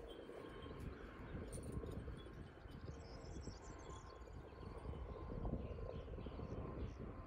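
Outdoor field ambience: wind rumbling on the microphone and rustling through tall grass as the camera moves, with a few faint high chirps around the middle.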